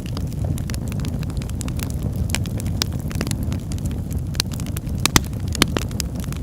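Wood fire burning with a steady low rumble and irregular sharp crackles and pops, a couple of louder pops near the end.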